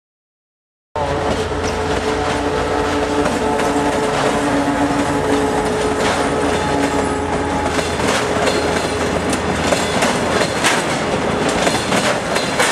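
Freight train passing close by: a TEM7 diesel shunting locomotive with its engine running, followed by tank wagons whose wheels clack over the rail joints. It starts suddenly about a second in, and the clacks grow more frequent in the second half.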